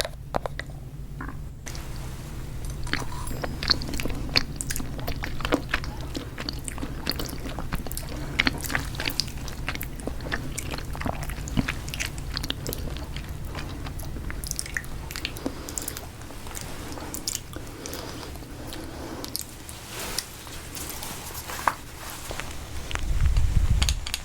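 Close-miked ASMR chewing: irregular crunches and small wet mouth clicks of someone biting and eating, over a low steady hum, with a louder low rumble near the end.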